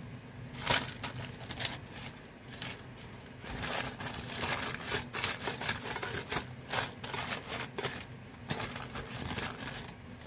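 Baking paper crinkling and rustling in irregular bursts as it is handled and pressed around dough in a tray, busiest from about a third of the way in.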